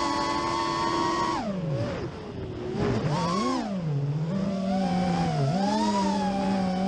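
4-inch QAV-R FPV racing quadcopter's motors whining, the pitch rising and falling with the throttle. It holds high for about a second and a half, drops and goes quieter around two seconds in, climbs again, then wavers and settles to a steady pitch near the end.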